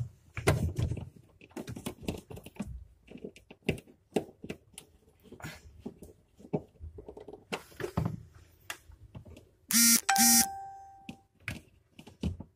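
Clicks and light knocks of a screwdriver and hands working on a refrigerator's plastic thermostat housing and its screws as the housing is tightened. About ten seconds in, two loud electronic beeps sound close together.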